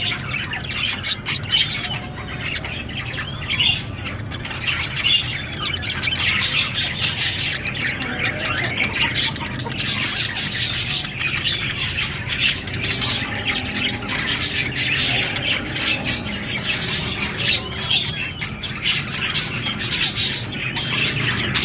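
Budgerigars chattering and chirping without pause, a dense run of short squawks and warbles over a steady low hum.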